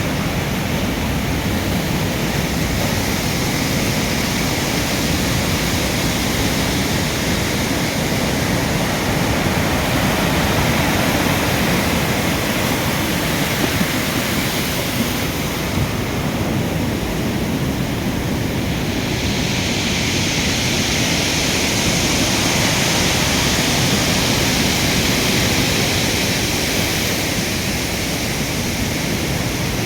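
Rough, stormy sea: surf breaking and washing in a continuous rush of water noise, growing hissier for several seconds past the middle as a wave runs up.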